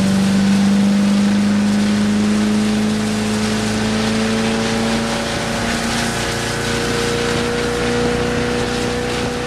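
Towboat engine running at speed with a steady drone that climbs slightly in pitch and then holds, over the rushing hiss of water and spray from the skier being dragged behind the boat.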